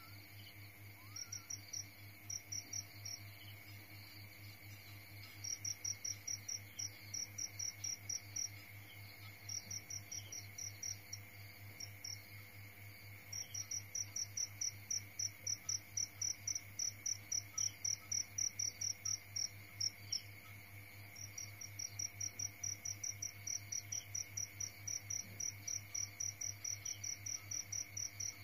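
A cricket chirping in runs of short, even chirps, about three to four a second, with pauses between the runs. A steady low hum sits underneath.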